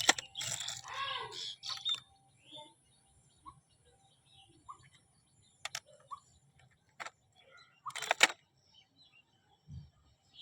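Scattered short bird chirps, with a few sharp clicks and taps, the loudest a double click about eight seconds in.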